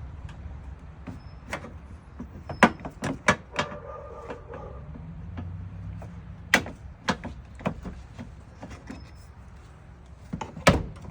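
Scattered sharp clicks and knocks of hand tools and plastic intake parts being handled in a car's engine bay, in small clusters, over a steady low hum.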